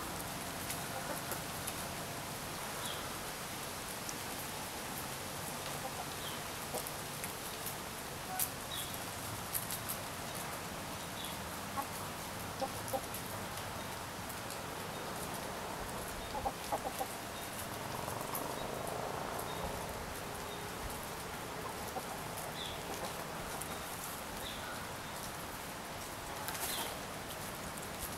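Mixed flock of backyard hens (Rhode Island Red, Welsummer, Partridge Rock and Golden Laced Wyandotte) clucking softly as they feed, with scattered sharp clicks and a faint short high chirp every few seconds.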